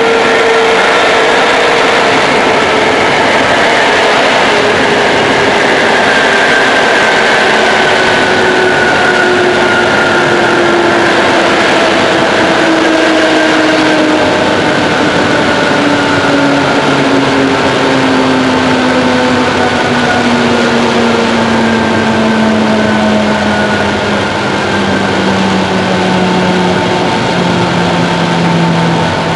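ČD class 460 electric multiple unit slowing down, heard from inside the coach: the whine of its traction motors and gearing slides steadily down in pitch over continuous wheel and rolling noise as the train decelerates toward a station stop.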